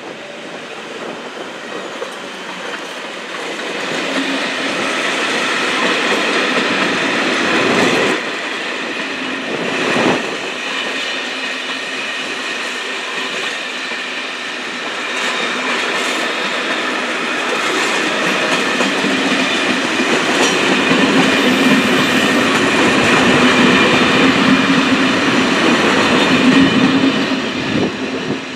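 Electric-hauled passenger train passing close by: the coaches' wheels rumble and clack over the rail joints, with high ringing tones from the wheels on the rails. It fades as the last coach goes by near the end.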